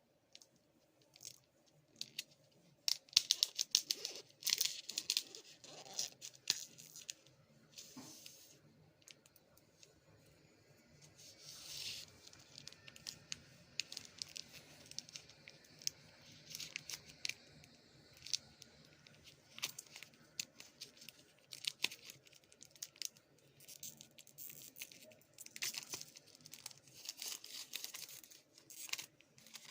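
Packaging being torn open and crinkled by hand: repeated bursts of tearing and rustling with small clicks and taps, loudest about three to five seconds in and again near the end.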